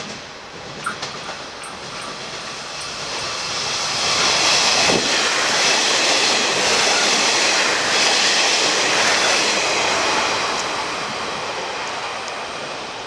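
Resort Shirakami diesel railcar train running through a station without stopping: it builds as the train comes in, is loudest for several seconds as the cars pass close by, then fades as it moves away. A few sharp clicks come in the first second or so.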